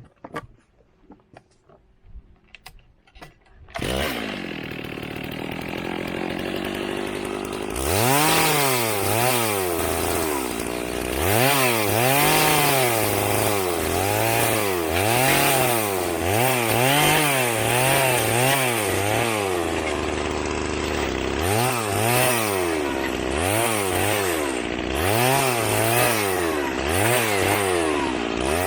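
A chainsaw comes in suddenly about four seconds in, running steadily, then from about eight seconds is revved up and down over and over, its pitch rising and falling about once a second as it cuts into an oak log. A few faint clicks come before it.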